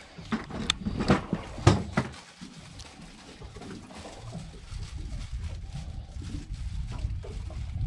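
Sharp knocks and rubbing from a gloved hand working a fishing reel close to the microphone, clustered in the first two seconds. After that, a steady low rumble.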